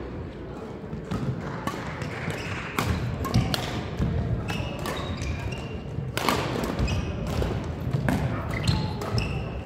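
Badminton play echoing in a large sports hall: irregular sharp racket strikes on shuttlecocks and thuds of players' feet on the court floor.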